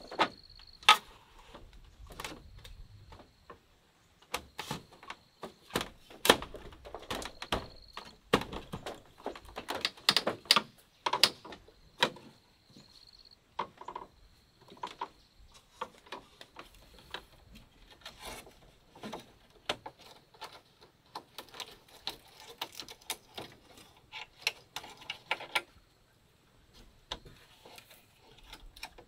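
Irregular clicks and light knocks, sometimes several in quick succession, thinning out near the end, with a faint steady high-pitched tone coming and going.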